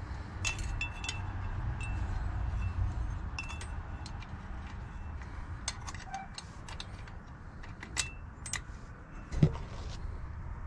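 Small steel drum-brake springs and hardware clinking in the hands: a scattered series of light metallic clicks and jingles, some with a brief ring. A dull thump near the end.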